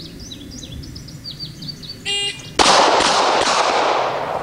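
A shot timer's start beep, then three rapid pistol shots from a Glock 22 in .40 S&W, about 0.4 s apart, ringing out afterwards. Birds chirp before the beep.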